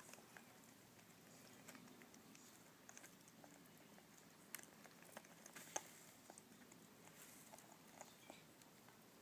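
Baby African grey parrots making faint, scattered clicks and light scratches, a handful of sharper clicks about halfway through, over near silence.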